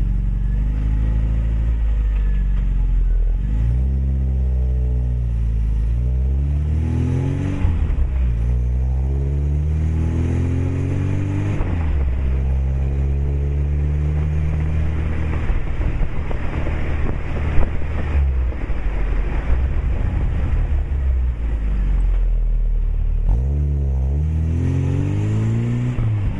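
Lada 2107 inline-four engine heard at the tailpipe through a 50 mm sport exhaust with a sport muffler and stainless tip, revved again and again. Each rev climbs over a few seconds and falls back, and one in the middle is held high for several seconds.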